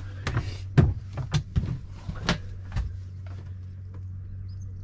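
Quick footsteps and sharp knocks, as of a door or hatch being handled, while someone moves out of a sailboat's cabin into the cockpit, over a steady low hum. The knocks die away after about three seconds, leaving only the hum.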